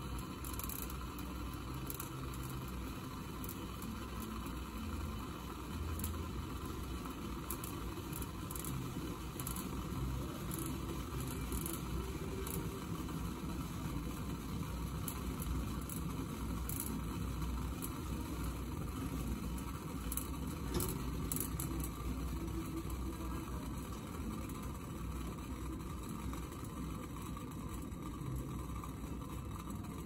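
1930s Silex vacuum siphon coffee maker brewing on its electric burner: water boiling in the lower glass bowl and bubbling up through the coffee in the upper bowl, a steady low rumble with scattered small ticks.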